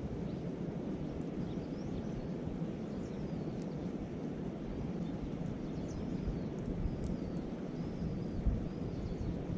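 Steady rushing of wind on the microphone mixed with the murmur of a nearby river, with faint bird chirps now and then.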